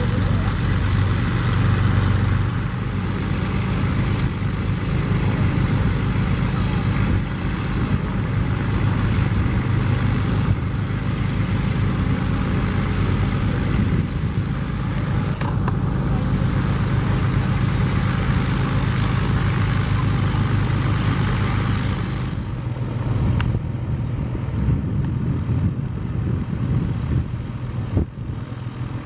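Piston propeller aircraft engine running steadily: a North American T-28 Trojan's radial engine turning its propeller as it taxis. The sound thins out in its upper range about three-quarters of the way through.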